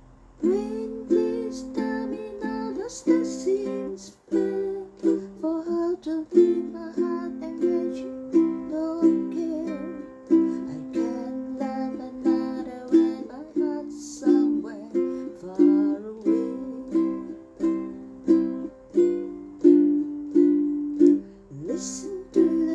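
Ukulele strummed in a steady rhythm, a chord about every two-thirds of a second, starting about half a second in.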